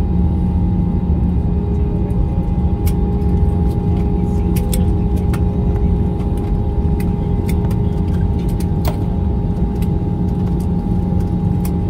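Steady low rumble of an airliner cabin, with steady hums and scattered light clicks and rattles.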